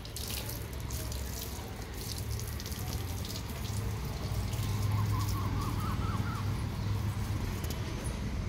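Water running from a garden hose and splattering on wet concrete, over a low steady hum. A short wavering chirp sounds about five seconds in.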